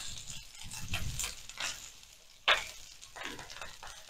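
Silicone spatula stirring sliced onions and whole spices in hot oil in a non-stick frying pan: irregular soft scrapes over a faint sizzle, with one sharper scrape about two and a half seconds in, dying away near the end.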